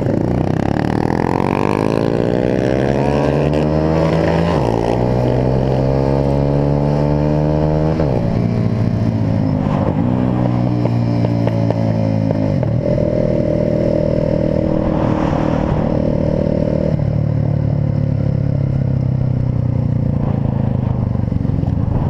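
Small-displacement motorcycle engine pulling away and accelerating up through the gears. Its pitch climbs and then drops at each upshift, about four and a half, eight and twelve and a half seconds in, and it then runs steadily at cruising speed.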